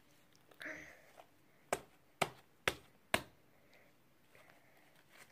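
Slime being squeezed and slapped between the palms, giving four sharp pops or snaps about half a second apart.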